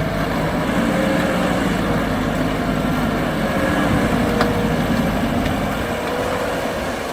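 A heavy vehicle's engine running steadily, with one faint click about four and a half seconds in.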